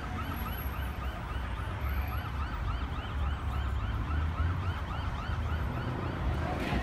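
Emergency vehicle siren in a rapid yelp, its pitch sweeping up and down about four times a second, over a steady low rumble.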